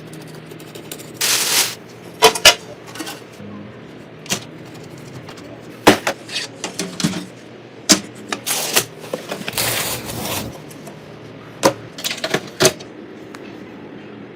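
Computer parts being handled and fitted during a PC build: scattered sharp clicks and knocks with a few short rustling swishes, over a faint steady hum.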